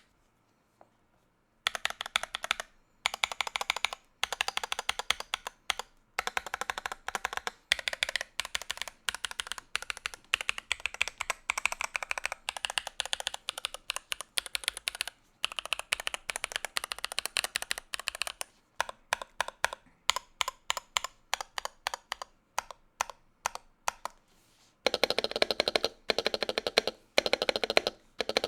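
Typing on a NuPhy Halo65 mechanical keyboard fitted with its stock Gateron G Pro Brown 2.0 tactile switches: a quick, steady run of keystroke clacks starting a couple of seconds in. From about 25 s in the keystrokes come louder and fuller.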